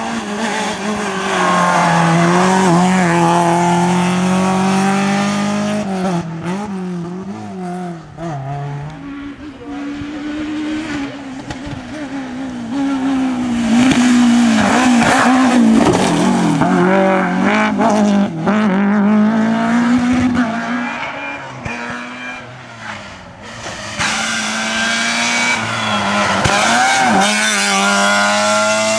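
Several rally cars in turn, each engine revving hard with the pitch climbing and dropping repeatedly through gear changes and lifts for corners as the car passes.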